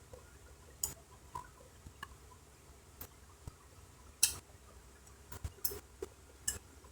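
Scattered light clicks and taps of small laptop parts and tools being handled during motherboard assembly, about half a dozen spread over several seconds, the sharpest about four seconds in.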